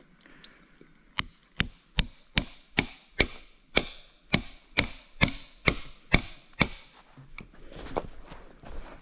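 Claw hammer driving a steel nail into a living tree trunk as a climbing step: about a dozen sharp, evenly paced blows, a little over two a second, stopping about seven seconds in.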